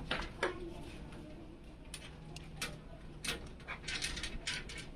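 Irregular light clicks and rustles, denser in the second half.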